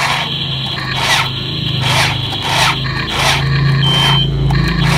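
Tracked RC toy excavator straining under load as it tows a train of loaded toy trucks through mud: a steady low motor hum with a rasping crunch about every 0.7 seconds, and a brief high beep near the end.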